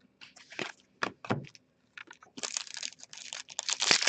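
Hockey trading cards and a pack wrapper being handled: scattered crinkling and rustling, sparse at first and getting busier and louder about halfway through.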